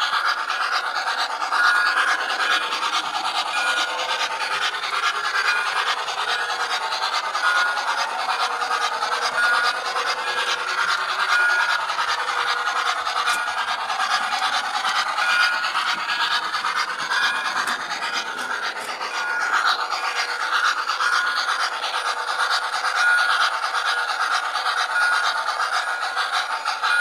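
O-gauge model steam locomotive running along three-rail track, its wheels and motor making a steady rattling rumble heard close up from on board the train.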